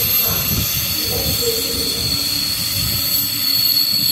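Double-deck regional train rolling slowly through the station, its wheels squealing on the rails with a steady high-pitched squeal over a low rumble.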